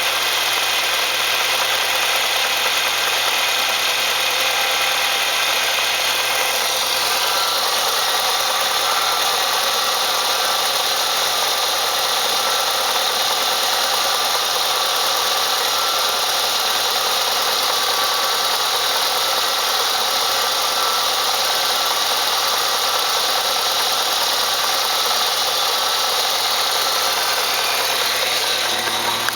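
Car engine running steadily, with an abnormal noise coming from it that the owner fears is a sign of trouble. The sound gets brighter and slightly different about seven seconds in.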